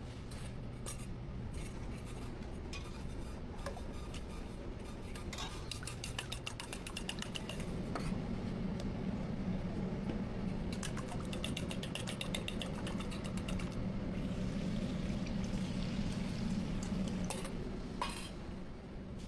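Street food cooking: metal utensils clinking and scraping against pans, with scattered clicks and two runs of fast, rapid ticking.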